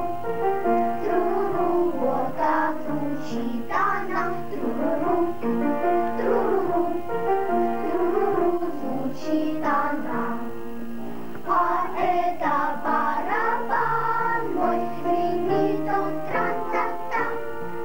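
A children's choir of schoolgirls singing together without a break.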